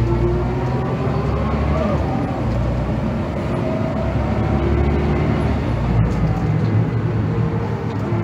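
Heuliez GX217 CNG city bus heard from inside the cabin while accelerating: steady low drone of the natural-gas engine with a whine from the drivetrain that climbs in pitch, drops back and climbs again.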